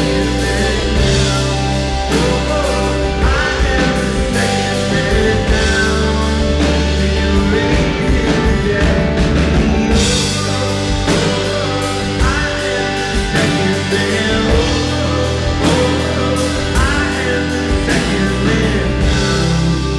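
Live rock band playing at full volume: drum kit, bass and electric guitars.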